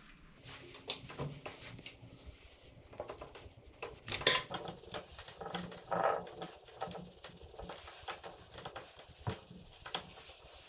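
Handling noises from a motorcycle wheel being turned by gloved hands on a wheel-balancing stand: irregular clicks, knocks and rustling, loudest about four seconds in and again about six seconds in.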